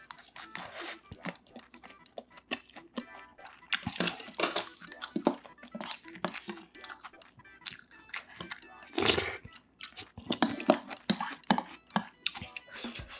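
Close-miked eating: chewing and mouth noises, with a spoon scraping and clinking in a ceramic bowl between bites. One louder noise comes about nine seconds in.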